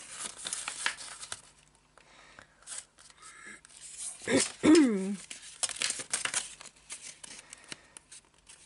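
Paper being folded and creased by hand: repeated rustling and crinkling strokes as a square of scrapbook paper is folded corner to corner and the creases are pressed flat. A brief falling voice sound about halfway through is the loudest moment.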